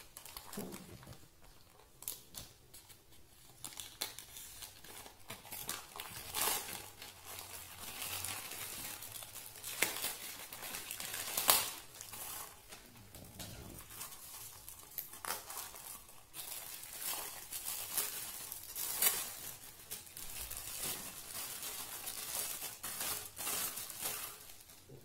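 Plastic poly mailer bag crinkling and rustling as it is cut open with scissors and a silicone mould in a clear plastic bag is pulled out. It comes in irregular handling noises with a few sharper crackles, the loudest about 11 and 19 seconds in.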